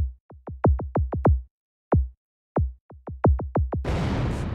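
Electronic intro jingle built on drum-machine hits that each drop sharply in pitch. They come in a quickening run about half a second in, then spaced beats and a second fast build, ending in a loud rushing swell of noise near the end.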